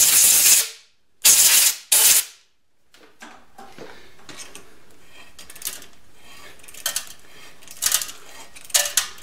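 Compressed-air blow gun hissing in short blasts to clear cast-iron chips from a hole being tapped. The first blast cuts off about half a second in, and two quick ones follow at about one and two seconds. After that come faint clicks of the ratcheting T-handle tap wrench as the tap is worked.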